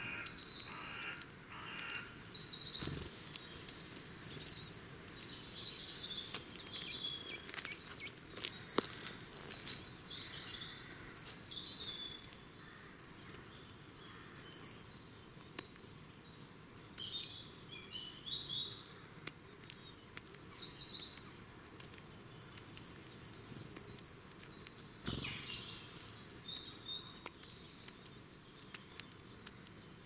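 Woodland birdsong: several songbirds singing and chirping in high phrases, with repeated fast trills in the first half and again after about 20 seconds. A few short, sharp, loud notes stand out, around 13 and 18 seconds in.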